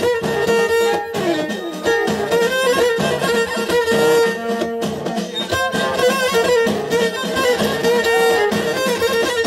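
Live Amazigh folk music from the Middle Atlas. A violin leads with a quick, ornamented melody over plucked lotar lutes and a steady beat of bendir frame drums.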